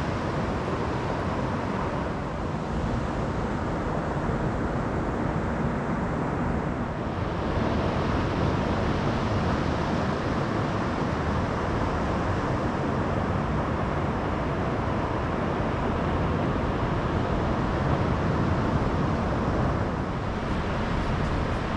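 Wind blowing across the microphone over the steady wash of surf breaking on a sandy beach.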